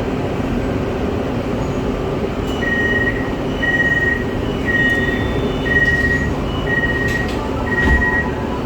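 Inside a driverless MRT Putrajaya Line train carriage: a steady rumble and hum, with six short door-closing warning beeps about a second apart. A knock sounds near the end as the doors shut, and a steady motor whine starts up.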